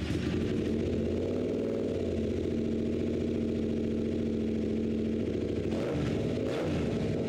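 Yamaha Ténéré 700's parallel-twin engine idling steadily with its exhaust muffler removed, running through the open pipe. Its pitch briefly dips and recovers about six seconds in.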